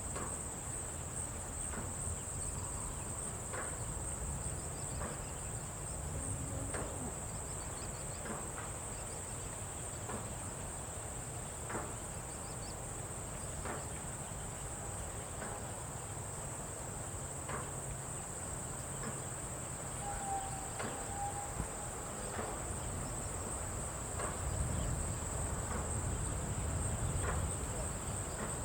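Crickets chirping in a steady high trill over a low rumble, with scattered faint clicks and one brief mid-pitched note about two-thirds of the way through.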